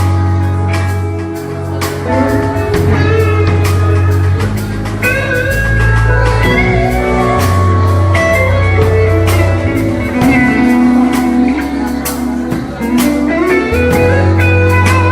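A live band jamming an instrumental: guitar playing bending melodic lines over steady low bass notes and drums.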